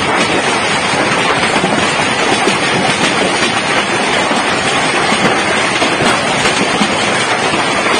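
Hailstorm with heavy rain: hailstones and rain pelting down in a loud, steady, dense clatter.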